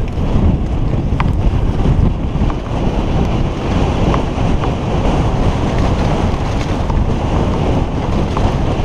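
Wind buffeting a helmet-mounted camera's microphone during a fast mountain-bike descent: a loud, steady rumble, with a few faint clicks from the bike.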